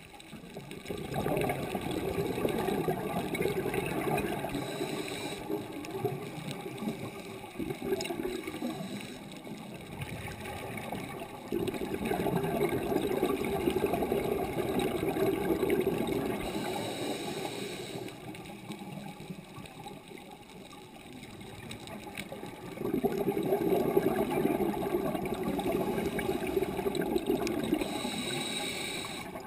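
Underwater scuba breathing: a diver's regulator exhaust bubbling and gurgling in three long surges of exhaled bubbles, with quieter spells between them while the diver inhales.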